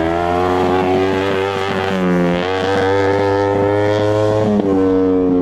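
Kawasaki Ninja 250 parallel-twin motorcycle engine in an off-road shifter kart buggy, revving up under hard acceleration. Its pitch climbs, drops back sharply about two seconds in and again near the end, and climbs again, as it shifts up through the gears.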